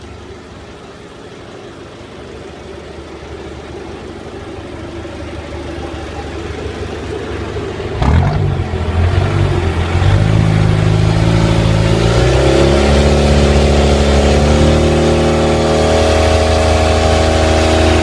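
An off-road vehicle's engine grows steadily louder for about eight seconds, then is suddenly loud and close. Through the second half its revs climb in several steps.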